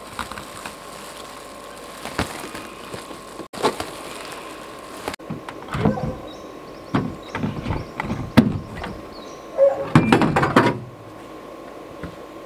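Scattered knocks, thuds and clatter of camping gear being handled and packed away, with a louder burst of clattering about ten seconds in.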